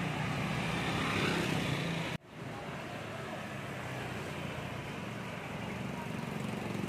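Battered chicken pieces deep-frying in a wok of hot oil: steady sizzling and bubbling over a low hum. The sound drops out sharply for a moment about two seconds in, then carries on.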